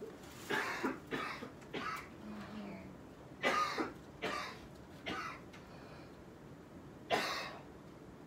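A person coughing in short, hoarse bursts: three coughs about half a second in, three more from about three and a half seconds, and a single cough near the end.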